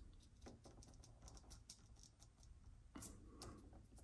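Near silence, with faint light ticks and paper rustles as fingers push two thin wavy rotary-engine side seal springs into place on a sheet of paper.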